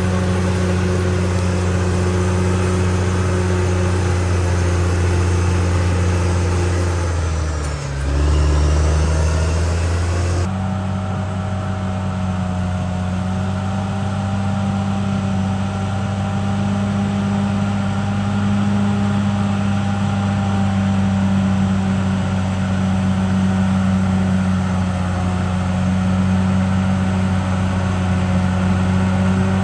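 Caterpillar D6R XL bulldozer's diesel engine running steadily and loudly. About eight seconds in its pitch dips briefly and recovers. A couple of seconds later the sound changes abruptly and loses most of its high hiss.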